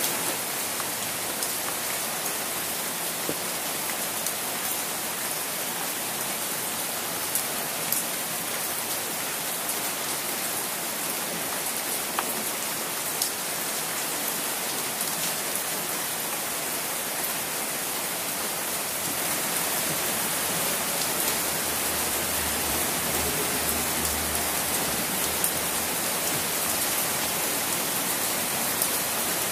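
Steady rain falling on an umbrella, with scattered sharp ticks of single drops.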